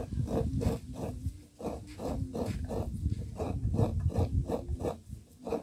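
Grated coconut being squeezed and wrung by hand over a pot to press out coconut milk, in an even rhythm of about three squeezes a second.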